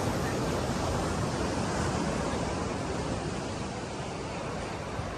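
Steady rush of sea surf breaking on the shore, with wind.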